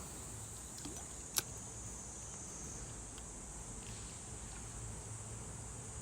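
Steady high-pitched insect drone, with one sharp click about a second and a half in.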